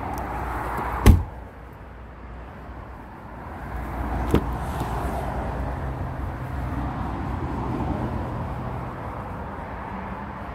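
A heavy thud of a car door or tailgate being shut about a second in, then a lighter click of a door latch about three seconds later as the car's front door is opened. A steady low rumble runs underneath.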